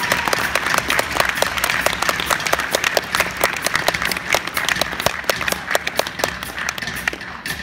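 Audience applauding, dense clapping that begins to thin out near the end.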